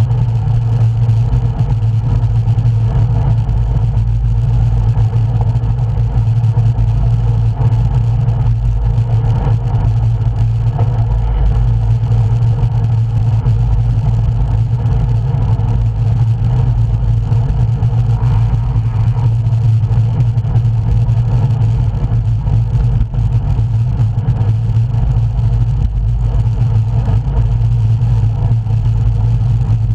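Steady low wind rumble on the microphone of a camera riding along on a road bike, loud and unbroken, with road and riding noise underneath.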